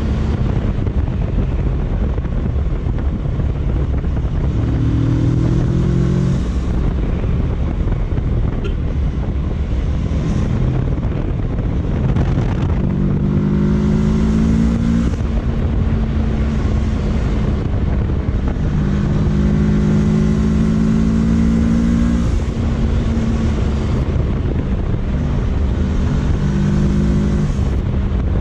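Kawasaki Versys 650 parallel-twin engine running at road speed, its note climbing several times as it accelerates and then dropping back, over a steady rush of wind and road noise.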